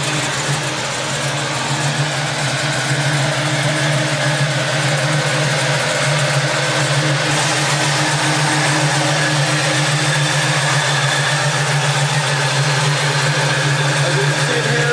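Fuel-injected 396 big-block Chevrolet V8 idling steadily, a constant low note with no revving.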